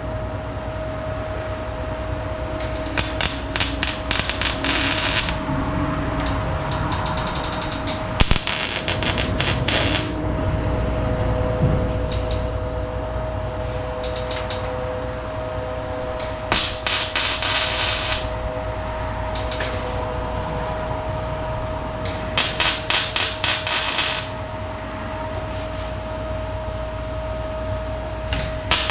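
Metal-shop tool work on an 18-gauge steel package-tray patch: five bursts of rapid, sharp clattering, each a second or two long, over a steady hum.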